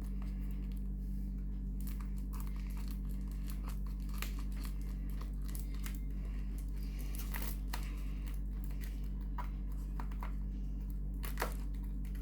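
Parcel packaging crinkling and tearing as it is handled and pulled at to open it, with scattered crackles and a sharp click near the end. A steady low hum runs underneath.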